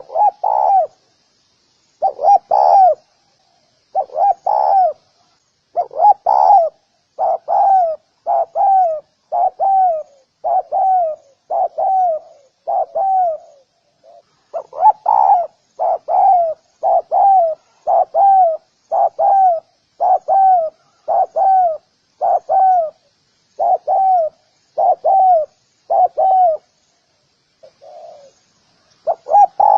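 Spotted dove cooing: a long run of short, slightly falling coos, about one or two a second, with a brief pause about halfway through.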